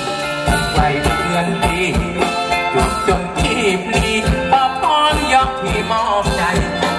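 Live band playing Thai ramwong dance music: a steady drum beat about twice a second under a melody, with a singer's voice.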